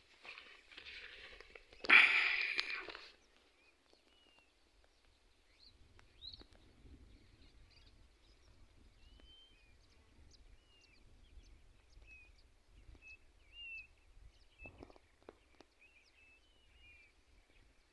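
Faint outdoor ambience of small birds chirping, short calls repeating every second or so over a low wind rumble, with a brief louder noise about two seconds in.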